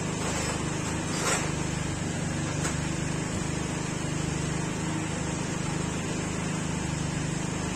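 Steady mechanical hum of workshop machinery, with a couple of light clicks as the metal side-case mounting parts are handled and fitted.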